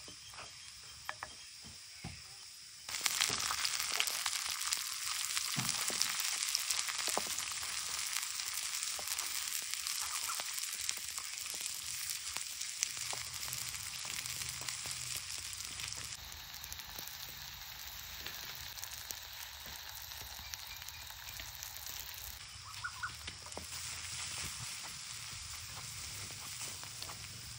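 Onion, garlic and crushed chilli frying in hot oil in a pan, a steady sizzle. The sizzle jumps suddenly louder about three seconds in and eases a little later, with a few light clicks over it.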